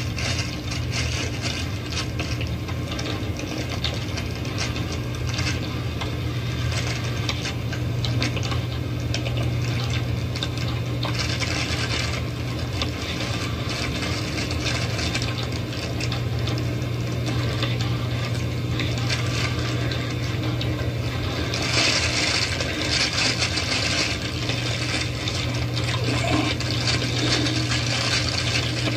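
Handheld camcorder audio: continuous crackling, rubbing handling noise over a steady low hum, swelling briefly about three quarters of the way through.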